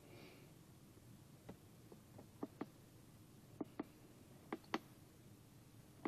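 Buttons on a handheld OTC scan tool being pressed: short plastic clicks, mostly in quick pairs, three pairs in the second half with a few fainter single clicks before them, over near silence.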